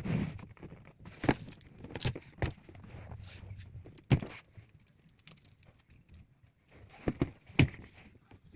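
Scattered short knocks and clicks from objects being handled, about seven of them, with a quieter stretch after the middle.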